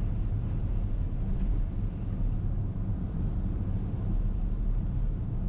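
Car driving on a wet road, heard from inside the cabin: a steady low rumble of tyres and engine.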